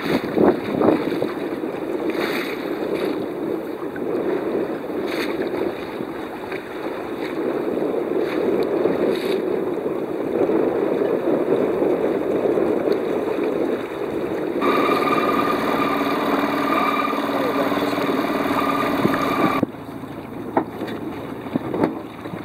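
Wind on the microphone and water washing along a sailboat's hull. For about five seconds past the middle, a steady hum with several held tones comes in over it, then cuts off suddenly as the sound drops to quieter wind and water.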